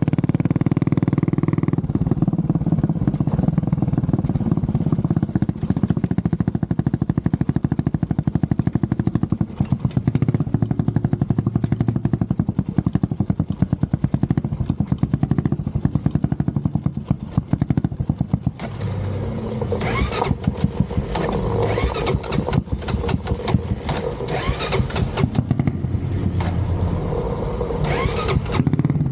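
Honda CB400SS single-cylinder motorcycle engine running under way, a rapid steady beat of exhaust pulses. About two-thirds of the way through the sound turns brighter and harsher.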